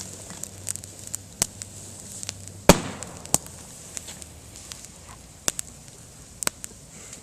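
Bamboo in a campfire bursting with one very loud bang about two and a half seconds in, among a scatter of sharper, smaller snaps and crackles from the fire. The bang is a sealed bamboo segment splitting as the water and air trapped inside heat and expand.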